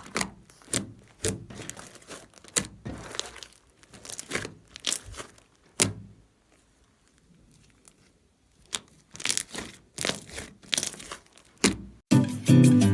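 Slime being squeezed and pressed by hand, giving irregular bursts of wet crackling and popping clicks, with a pause of about two seconds in the middle. Strummed guitar music starts near the end.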